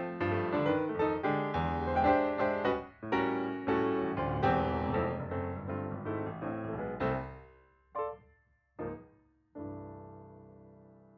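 Background piano music: a busy run of notes that thins out, two short chords, then a final chord left to ring and fade away.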